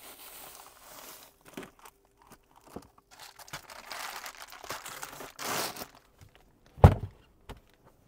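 Plastic bag crinkling and rustling as it is handled inside a portable fridge, with rustling heaviest in the middle. A single loud thump comes about seven seconds in.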